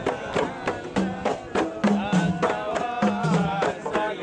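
Group of voices singing a chant over hand drums beating a quick, steady rhythm.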